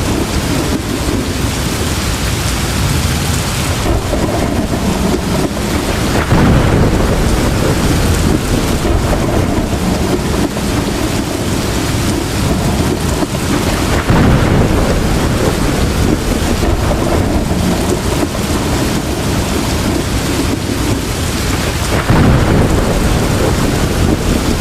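Heavy rain pouring steadily, with rolling thunder rumbling beneath it. The thunder swells louder three times: about a quarter of the way in, halfway through and near the end.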